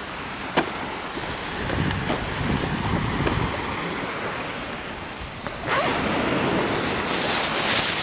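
Small sea waves washing on a pebble shore, with wind on the microphone; the wash grows louder and brighter a little over halfway through. A single sharp click about half a second in.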